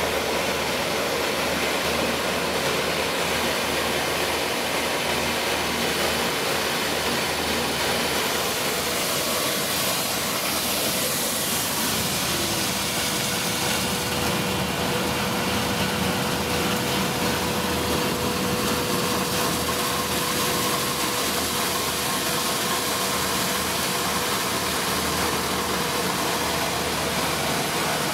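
6FW-PC2 corn peeling and milling machine running steadily with a constant mechanical drone, as cracked corn grits stream from its outlet into a plastic basin. A steady hum joins about twelve seconds in.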